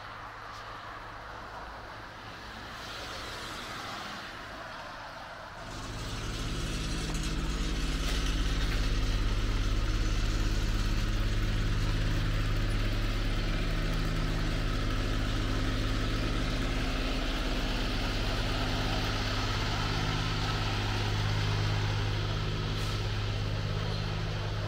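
A large vehicle engine running with a steady low hum, coming in abruptly about six seconds in and staying loud; before that, quieter outdoor street noise.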